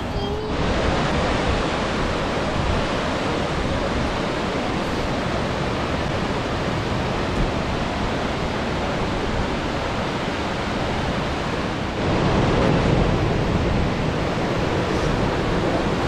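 Waterfall and creek rapids: a steady rush of falling and tumbling water. About twelve seconds in it gets louder and deeper.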